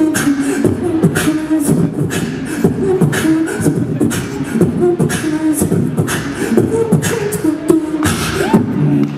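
Solo beatboxing into a handheld microphone through a PA: a fast run of drum-like kicks, snares and hi-hat clicks, several per second, over a low hummed line.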